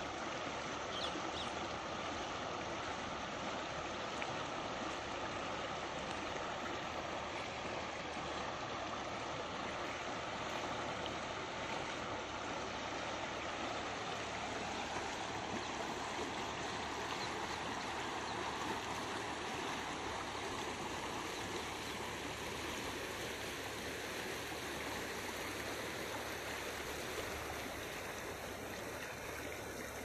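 Shallow river flowing fast over a bed of rounded stones: a steady, even rush of running water.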